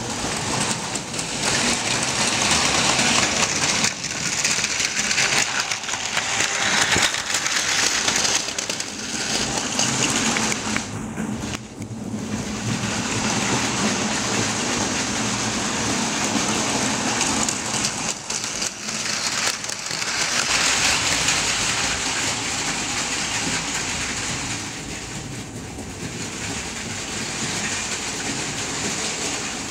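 Plarail Advance battery-powered toy Shinkansen trains running on plastic track: a continuous whirring and rattling of small motors, gears and wheels, swelling and fading several times.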